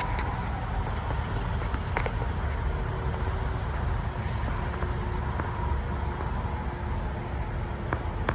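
Steady low background rumble, with a few faint clicks about two seconds in and near the end.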